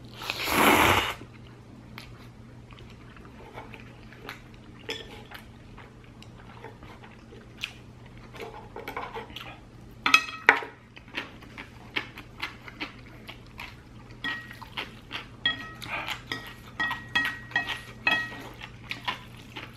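A loud slurp of noodles being sucked in about half a second in. Then quieter chewing and the clicking and clinking of wooden chopsticks against the dishes, with ringing clinks coming thick and fast in the second half.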